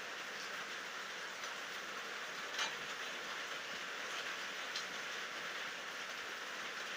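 Steady night rainfall, an even rushing hiss, with two sharper drop ticks near the middle.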